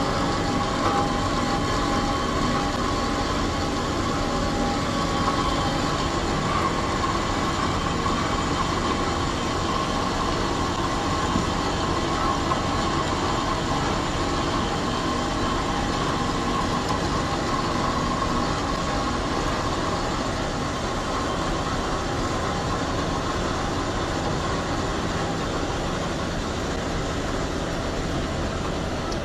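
RMT S-Smart CS 12-13 automatic dual-column bandsaw cutting through a 4-inch 304 stainless steel round bar: steady machine running with a held whine of the blade in the cut.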